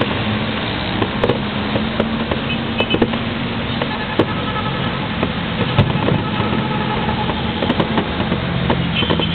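Aerial firework shells bursting, sharp cracks every second or two, over a steady low rumble and hum like idling engines.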